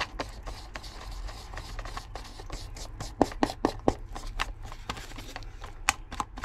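Wooden paint stir stick stirring marine epoxy in a paper plate: irregular scraping and ticking of the stick against the plate, with a few sharper clicks about three seconds in and near the end.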